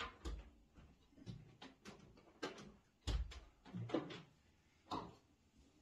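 A string of irregular knocks and clunks, about nine in under six seconds, the loudest about three seconds in: household things being handled.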